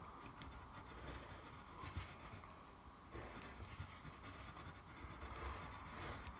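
Pencils scratching faintly on paper in short, irregular strokes as two people draw.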